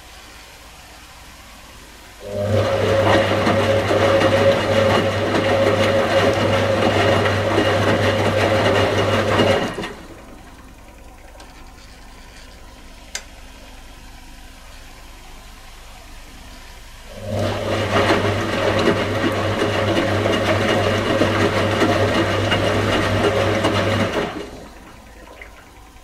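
1985 Indesit 822 front-loading washing machine on its wash tumble: the motor turns the drum with a steady hum for about seven seconds, stops for about seven seconds with a single click in the pause, then turns the drum again for about seven seconds.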